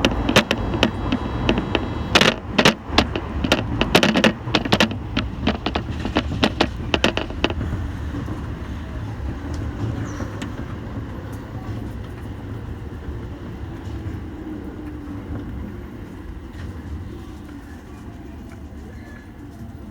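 Toei Shinjuku Line subway train running, with a quick series of clacks from the wheels over rail joints for the first seven seconds or so, then a steady low rumble that slowly gets quieter.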